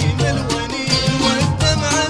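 Traditional Gulf Arab music: drums keeping a steady beat under a wavering melody line.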